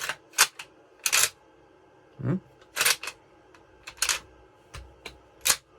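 Mossberg 590 pump-action shotgun being cycled by hand without firing: a series of sharp metallic clacks as the slide is racked back and forth, with a couple of duller thumps as it bottoms out. The action is slick enough to almost cock under its own weight.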